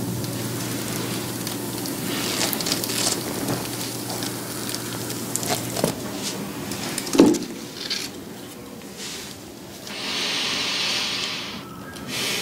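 Photo paper burning in small flames, crackling and hissing with scattered sharp ticks. There is one louder crack about seven seconds in, and a steady rushing hiss near the end.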